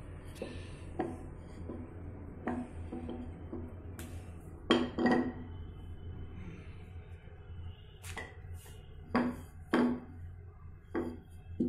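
Wooden rolling pin knocking and clacking on a kitchen counter as a ball of dough is rolled out flat: about ten separate knocks, some in quick pairs, over a steady low hum.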